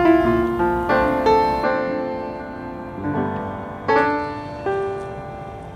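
Background music: a gentle piano piece, chords struck about once a second and left to ring out.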